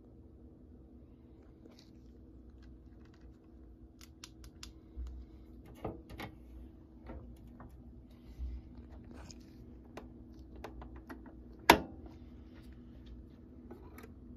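Faint scattered clicks and light handling noises around a JVC QL-A200 turntable, with one sharp, much louder click about two thirds of the way through, over a low steady hum.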